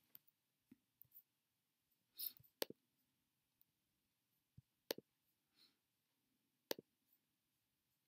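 Near silence: room tone with a few isolated, sparse clicks from a computer keyboard and mouse.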